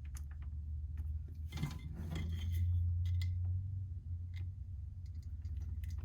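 Small metal clicks and scraping as a spread-open spade connector is worked onto a thermostat terminal, over a steady low hum that swells about halfway through.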